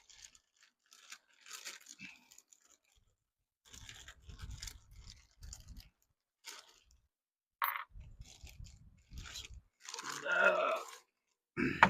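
Irregular crunching, scraping and rustling of hands at work, with a few sharp clicks and low handling thumps.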